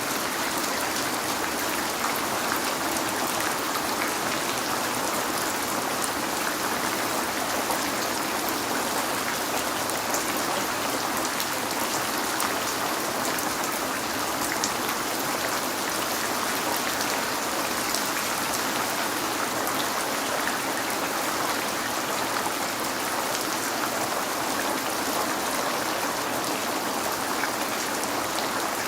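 Steady rain falling and pattering on a window, an even hiss with scattered drop ticks.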